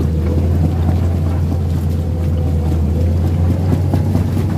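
Komatsu PC210 excavator's diesel engine running steadily under load as the machine tracks through deep mud, a deep constant drone with a thin steady whine above it, heard from the operator's cab.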